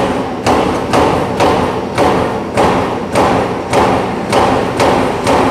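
CNC punching machine striking a steel sheet with evenly spaced heavy thumps, about two a second, each ringing briefly, over a steady machine hum.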